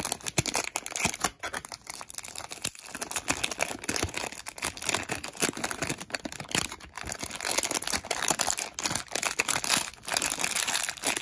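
Thin clear plastic wrapping crinkling and rustling as it is handled and pulled off a puzzle cube, in a dense run of irregular crackles.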